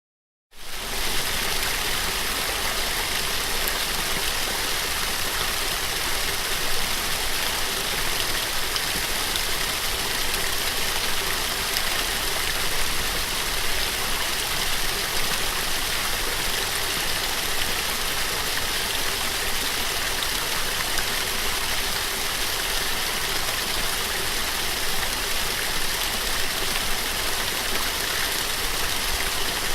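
Small waterfall splashing steadily, a continuous rush of falling water that fades in about half a second in.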